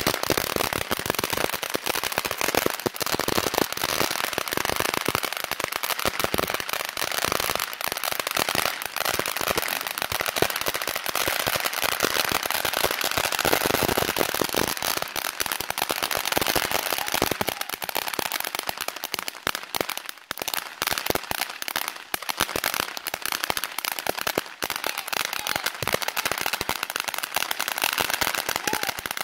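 Ground fountain firework burning: a continuous hiss of spraying sparks filled with rapid, closely packed crackling pops, which thin out somewhat over the second half.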